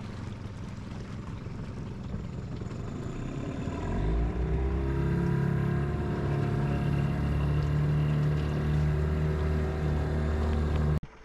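Boat outboard motor running, throttled up about four seconds in, then holding a steady higher pitch. Wind and water noise sit underneath. The sound cuts off abruptly near the end.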